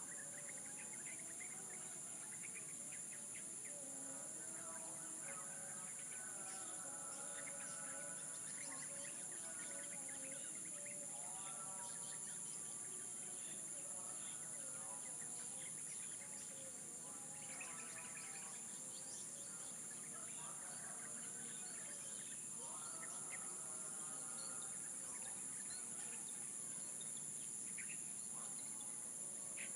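Steady high-pitched drone of insects, with birds chirping and calling over it and several longer pitched calls a few seconds apart.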